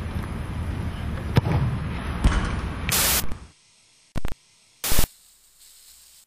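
Outdoor ambience with wind buffeting the microphone and two sharp thumps, then a burst of TV-style static hiss about three seconds in that cuts off suddenly. Two more short, loud bursts of static follow over near silence.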